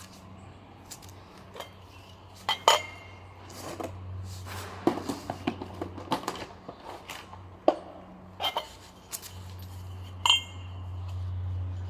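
Metal parts clinking and tapping against each other, a dozen or so sharp knocks, a few of them ringing briefly, over a low steady hum.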